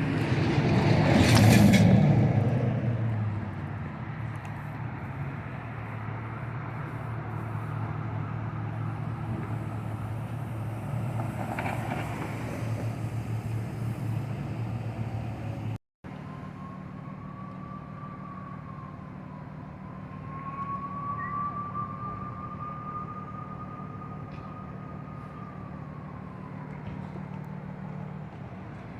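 Motor vehicle engine running steadily, with a loud rushing swell in the first couple of seconds. After a cut about halfway through, a faint emergency siren wails, slowly rising and falling.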